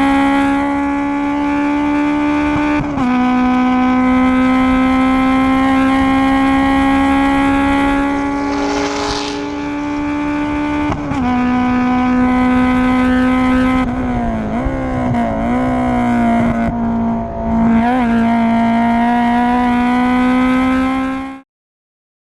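Acura Integra DC2 race car's engine running hard at high revs, its pitch climbing slowly and dropping sharply twice, about 3 and 11 seconds in, as it shifts up. The pitch wavers for a few seconds near the end under braking, and the sound cuts off suddenly just before the end.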